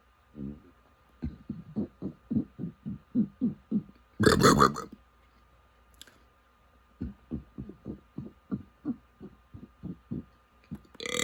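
A person burping in rapid runs of short, low-pitched burps, about four a second, as a record-speed burping attempt. The burping breaks off about four seconds in with a loud rushing noise, then starts again a few seconds later.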